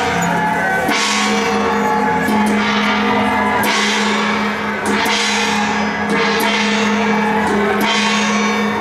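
Temple-procession percussion: cymbals and gongs crashing together a little over a second apart over drumming, with steady held instrument tones underneath.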